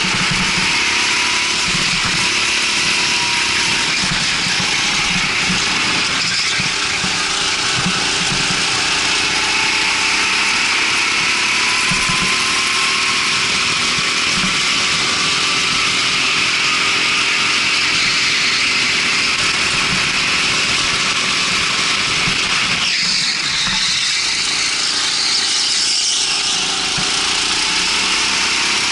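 Rental go-kart engine running at speed, its pitch rising and falling as it revs and eases off.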